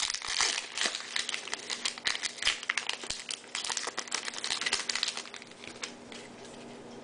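Plastic trading-card pack wrapper crinkling as it is torn open and handled, a dense crackle that dies down about six seconds in.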